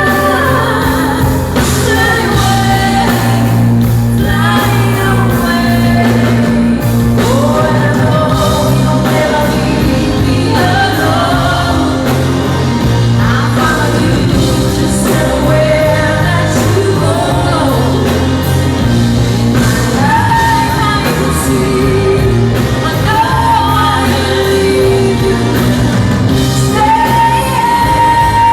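Live pop-rock band performing a song with a woman singing lead, holding and bending long notes over a steady bass line, in a concert hall's reverberation.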